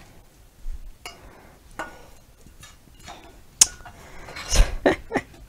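A wooden spoon scraping scrambled eggs out of a nonstick skillet onto a plate, with scattered light clinks and knocks of pan against plate, some briefly ringing. There is a sharper clink past the middle, and near the end a heavier knock and clatter of cookware.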